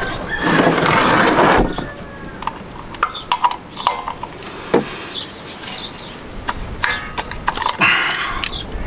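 Combination wrench on a Kubota M59 tractor's oil-pan drain bolt as the bolt is worked loose: a string of light metal clicks and clinks. A louder, even noise fills the first second and a half.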